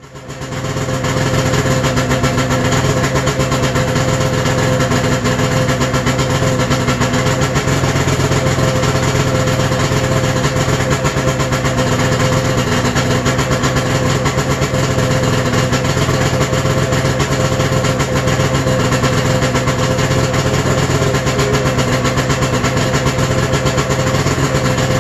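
2002 Arctic Cat ZR 600 EFI snowmobile's two-stroke twin engine idling steadily. It fades in about a second in and holds an even, loud idle with no revving.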